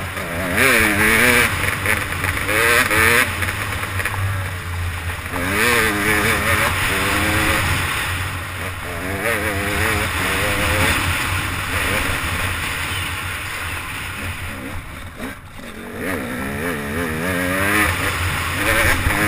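Trail dirt bike engine heard from the rider's seat, the revs climbing and falling over and over as the throttle is worked on a hill track. The engine briefly backs off about fifteen seconds in, then picks up again.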